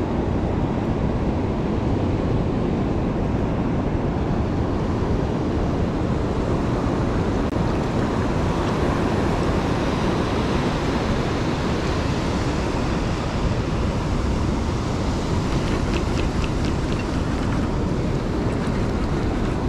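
Wind buffeting the microphone over steady breaking ocean surf.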